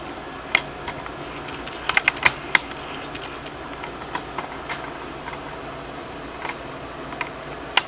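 Scattered light clicks and taps of a cardboard box and its packaging being handled, a quick cluster of them about two seconds in, over a steady low room hum.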